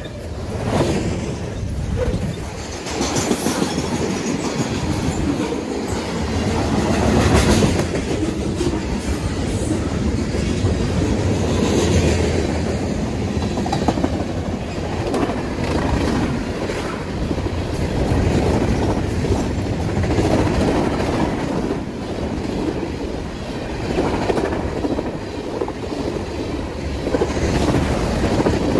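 Freight train rolling past, its wheels clattering steadily over the rail joints. The sound swells about a second in and stays loud and even after that.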